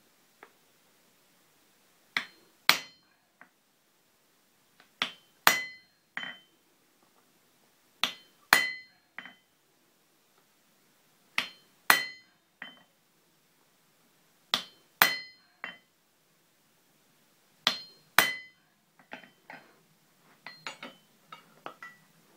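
Hammer blows on a hand-held top tool set on hot steel on an anvil, shaping a small forged leaf petal. They come in pairs about every three seconds, a lighter strike then a louder ringing one, and near the end there is a run of lighter, quicker clinks.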